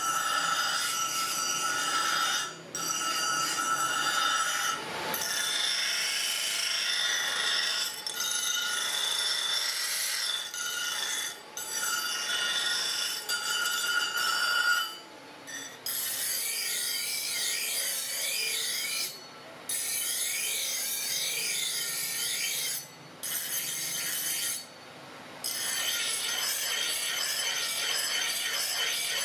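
Steel axe head being ground on a motor-driven grinding wheel: a harsh, high-pitched grinding, broken by several short pauses as the head is lifted off the wheel. From about halfway the grinding carries a wavering whine.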